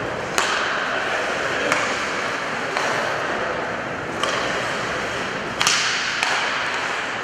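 Ice hockey play: skates scraping on the ice under a steady rink hiss, with about six sharp cracks of sticks hitting the puck, the loudest a little before the end.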